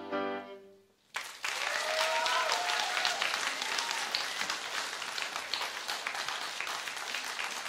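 The held final chord of three violins and piano dies away, and about a second in an audience starts applauding, with one voice whooping about two seconds in.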